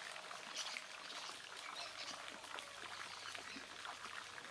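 Quiet outdoor ambience: a faint steady wash of water, a few small clicks, and some short high bird chirps.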